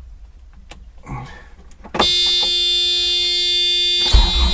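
Land Rover's electronic warning buzzer sounding as one steady tone for about two seconds, after a few light clicks. Near the end the vehicle's engine comes in with a loud low rumble.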